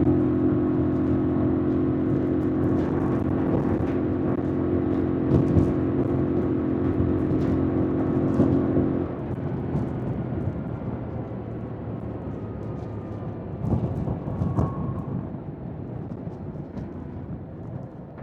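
2025 Yamaha MT-07's parallel-twin engine running at steady revs under way. About halfway through the throttle closes, and the engine note drops away and quietens.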